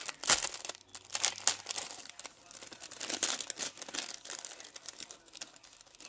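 Clear plastic bag crinkling irregularly in the hands as die cuts are pulled out of it, with a sharp loud crackle about a third of a second in and quieter handling near the end.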